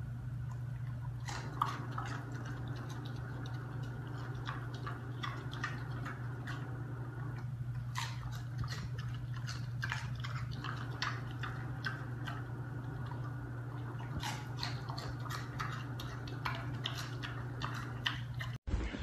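Pet pig chewing a piece of crunchy food with many short, irregular crunching and smacking clicks, over a steady low hum.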